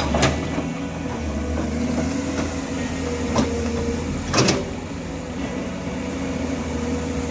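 Komatsu hydraulic excavator's diesel engine running steadily with a steady whine. A few sharp knocks are heard over it, the loudest about four seconds in.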